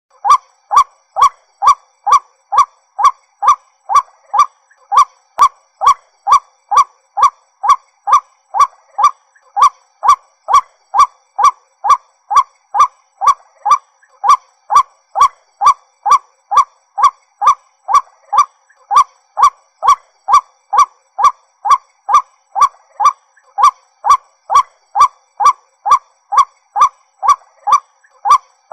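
White-breasted waterhen calling: one short note repeated monotonously at an even pace of about two a second.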